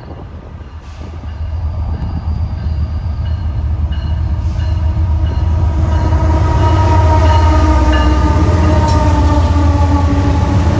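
Union Pacific GE C45ACCTE (ES44AC) diesel locomotives approaching and passing close by. The deep engine rumble grows steadily louder over the first several seconds, and a set of steady droning tones rises in over it as the lead units go by.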